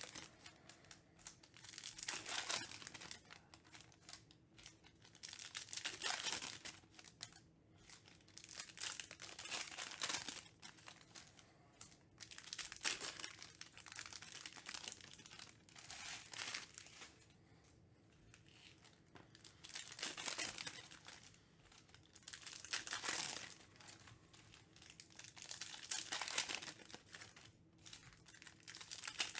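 Plastic trading-card pack wrappers crinkling and tearing as packs are opened, in about ten bursts, one every two to three seconds.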